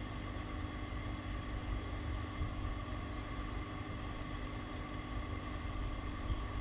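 Steady background hum made of a low rumble and several constant tones, with no distinct event apart from a faint click about a second in.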